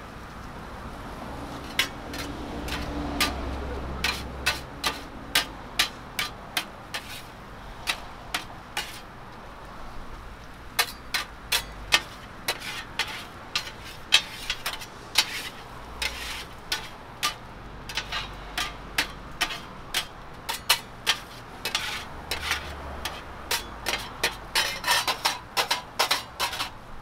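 Two metal griddle scrapers clacking and scraping on a flat stainless-steel griddle as noodles are tossed and chopped, over the sizzle of sauce frying on the hot plate. The sharp knocks begin about two seconds in, come irregularly, and quicken to several a second near the end.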